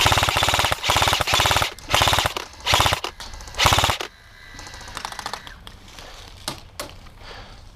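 Airsoft G&P Stoner 63 electric gun firing full-auto in about five quick bursts over the first four seconds, laying down cover fire; after that only a few scattered single clicks.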